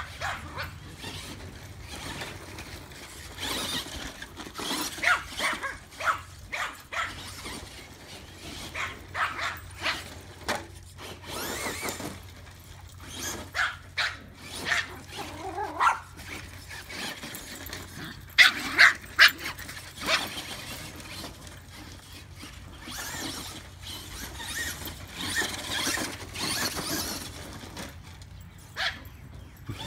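Yorkshire terriers barking and yipping in repeated short bursts while excited at play, loudest a little past the middle.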